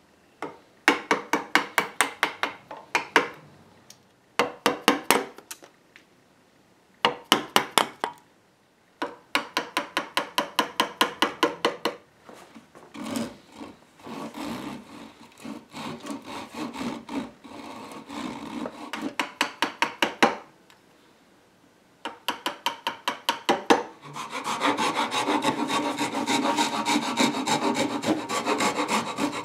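Hand rasp and chisel shaping the end of a new wooden chair rail into a round tenon. The rasp goes in bursts of quick strokes, several a second, with short pauses between, and near the end gives way to steady continuous rasping.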